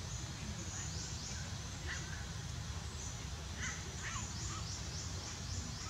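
Outdoor ambience: a steady low rumble with repeated high chirping, and a few short animal calls about two seconds in and again around four seconds.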